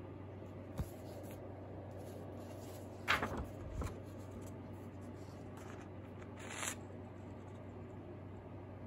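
Sheets of drawing paper being handled and swapped by hand: a few short papery clicks and rustles, the loudest cluster about three seconds in and another rustle near the end, over a faint steady low hum.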